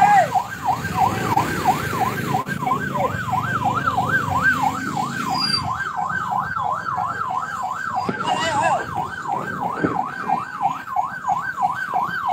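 A siren warbling quickly up and down, about three sweeps a second, going on without a break over a low rumble.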